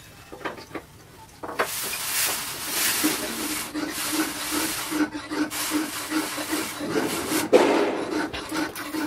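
Hot steel cleaver blade quenched in a trough of water: a loud, steady sizzling hiss sets in about a second and a half in, with a low bubbling pulse about three times a second beneath it and a brief louder surge near the end.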